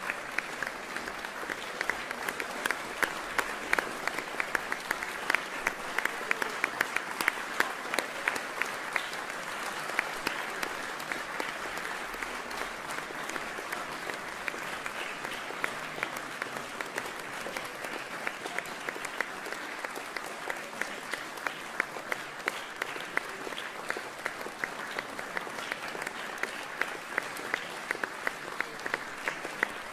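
Audience applauding steadily, many hands clapping at once in a concert hall.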